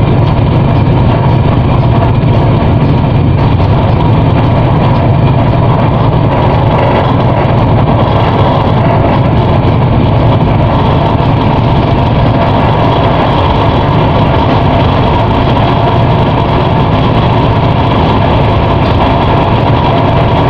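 A ship's engine running steadily under way: a loud, even low rumble with no change in pitch.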